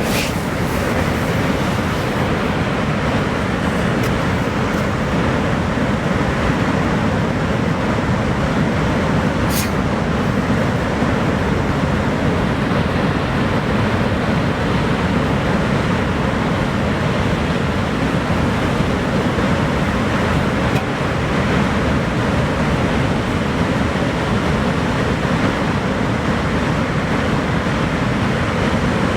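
Niagara Falls' falling water making a steady, deep, even rush that never breaks.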